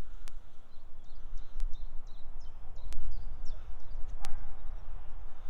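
A small songbird singing a run of short, high chirps over a steady low rumble on the microphone, with a few sharp clicks scattered through.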